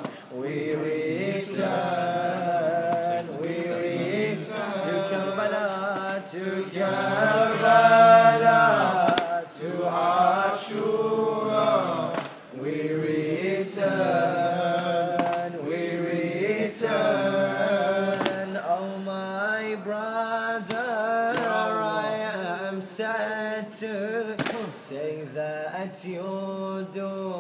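A man's unaccompanied voice chanting a slow, melodic mourning lament (a latmiya or nauha), drawing out long wavering notes that rise and fall.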